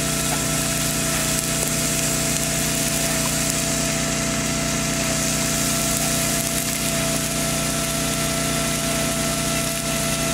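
Steady machine drone with a constant high whine, over the even hiss of water spraying from a Yuzuak Jet 50 rain-gun sprinkler.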